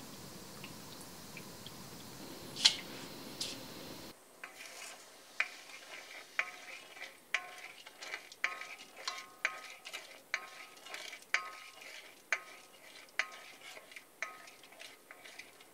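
A steady hiss while milk is poured in thin streams into agar-agar liquid in a wok. Then a ladle stirs the mixture, knocking against the metal wok about once a second with short ringing clacks.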